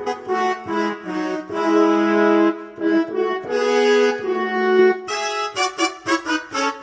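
Yamaha PSR-S970 arranger keyboard playing one of its brass voices: a phrase of held notes, then short, quick notes from about five seconds in.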